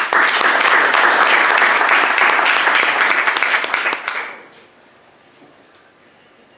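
Audience applauding: dense clapping for about four seconds, then dying away.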